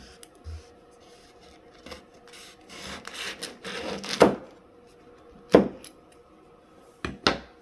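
Knife sawing through the tough rind of a passion fruit, a rasping scrape that builds for a second or two and ends in a sharp knock as the blade reaches the cutting board. Further sharp knocks on the board follow, the last two close together near the end.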